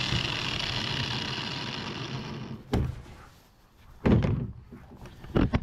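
Corded angle grinder with an 80-grit sanding flap disc running down after being switched off and set on the table, its whir fading away over about two and a half seconds. Then a few sharp knocks and thumps as a bar clamp and the wooden handle are handled on the table, the loudest about four seconds in.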